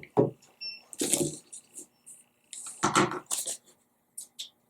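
Craft supplies such as paper being handled on a tabletop: a few short rustles and knocks, the biggest about a second in and about three seconds in.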